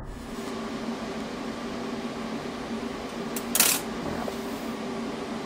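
Steady fan hum at a welding bench after the TIG arc has gone out, with one brief, loud, hissy noise about three and a half seconds in.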